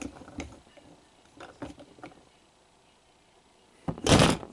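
Plastic toy motorcycles being handled on a tabletop, with a few light clicks and taps, then a louder clatter about four seconds in as a toy falls over.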